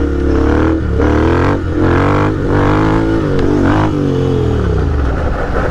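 Motorcycle engine running and being revved, its pitch rising and falling every second or so over a steady low drone.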